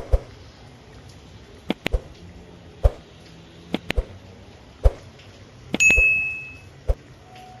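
A series of sharp, irregular knocks and clicks, about ten of them, with one ringing metallic clink about six seconds in that dies away over about a second. A faint steady tone starts near the end.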